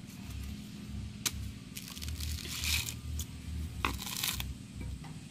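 Fibrous coconut husk being torn and pried off by hand, crunching and ripping, with a sharp click about a second in and two longer stretches of tearing, the second as a knife blade is worked into the husk.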